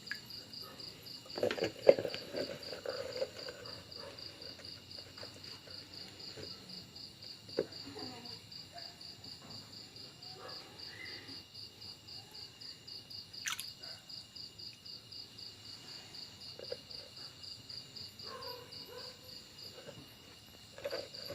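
A steady, rapidly pulsing high insect trill, cricket-like, with a few short splashes from the water as catfish snatch thrown shrimp; the loudest splash comes about two seconds in.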